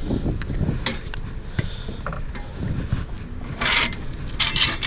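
Tire machine working the first bead of a motorcycle tire off its wheel: clicks, knocks and scraping over a steady low rumble, with two short rushing sounds near the end.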